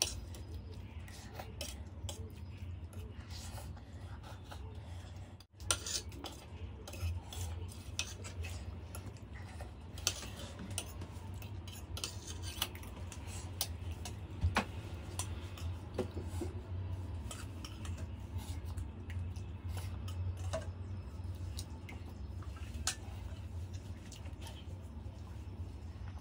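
Metal fork clinking and scraping on a stainless steel plate as noodles are scooped up: scattered sharp clicks over a steady low hum.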